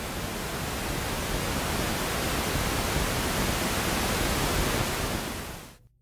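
Television static: a steady hiss of white noise from a TV set tuned to no signal, fading out quickly about five and a half seconds in.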